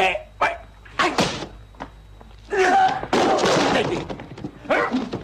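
Fistfight sound: men grunting and crying out amid sharp punch impacts, with a longer noisy crash about three seconds in.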